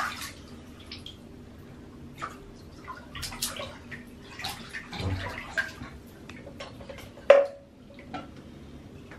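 Small splashes and drips of water as a child rinses her toothbrush, with scattered light clicks and one sharp knock about seven seconds in.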